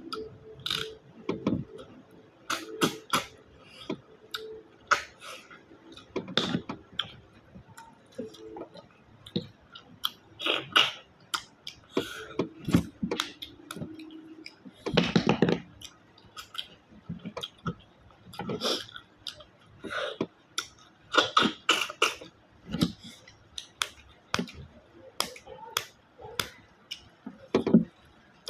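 Close-up eating of freshwater snails in coconut milk: repeated sharp sucking slurps as the meat is sucked out of the shells, with chewing and shells clicking against the plate in between. The longest and loudest slurp comes about halfway through.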